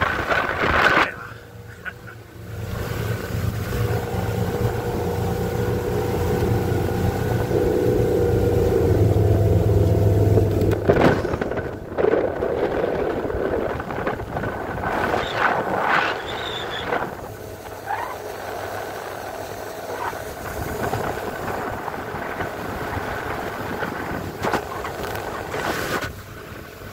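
A motorboat's 5.7-litre MerCruiser V8 with an Alpha One sterndrive running under way, its drone building in loudness over roughly the first ten seconds. After that, wind and water rush dominate, broken by several sharp thumps.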